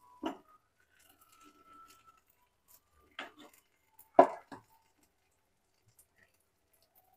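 Wet corn-and-cheese topping being spooned with a plastic spoon onto a bhakhari flatbread in a non-stick pan: a few short knocks of spoon and food, the loudest about four seconds in, with quiet between.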